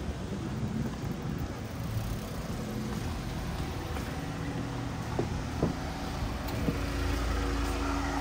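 A car running slowly on a street, its low engine hum growing a little louder near the end, with a few light clicks in the second half.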